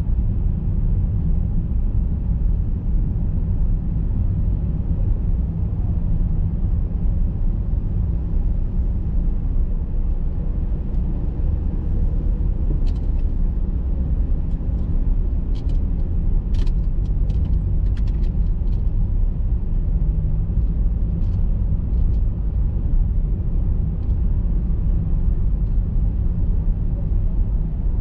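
A car being driven, with a steady low rumble of engine and road noise. A few faint clicks come through about halfway in.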